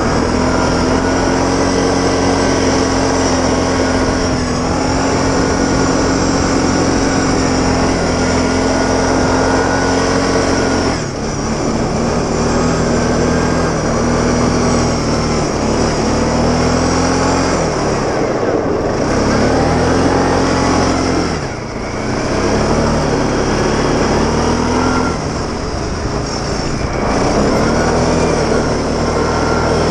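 Goes 520 quad's engine running under steady throttle. The revs drop and pick up again about four times as the throttle is eased and reopened.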